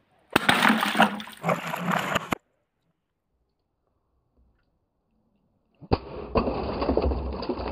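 Water-filled green glass beer bottle struck at its mouth in a bucket of water until its bottom breaks out: about two seconds of sharp knocks and splashing, a gap of silence, then water sloshing and gurgling near the end.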